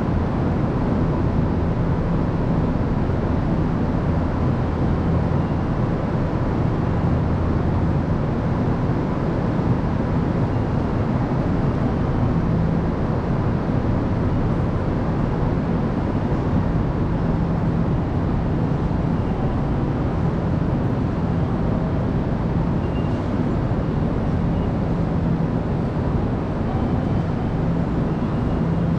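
Steady low hum and rumble of train station ambience, with a faint steady tone above it; the hum swells and eases at times.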